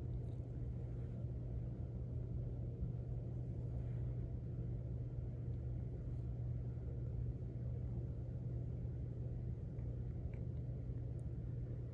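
Steady low rumble and hum of background room noise, unchanging throughout.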